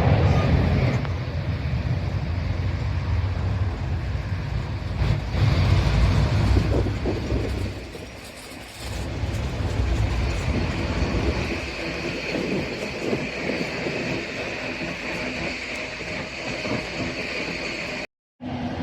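Airliner jet engines running at an airport, a steady low rumble with a faint high whine, dipping briefly about eight seconds in and cutting out abruptly for a moment near the end.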